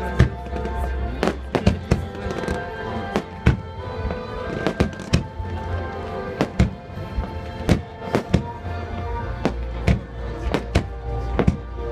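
Fireworks bursting in quick, irregular succession, many sharp bangs every second or so, over music with long held notes.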